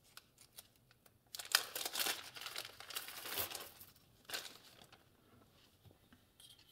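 Small clear plastic bag crinkling as it is handled and opened, with light clicks of loose steel spoke nipples being tipped out onto a pegboard bench. The crinkling runs in bursts from about a second in until past the middle, then dies away.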